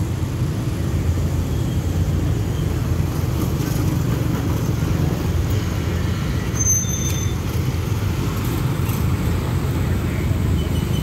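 Road traffic of motor scooters, motorbikes and a car driving over a railway level crossing: a steady mix of small engines running and tyre noise. A brief high tone sounds about six and a half seconds in.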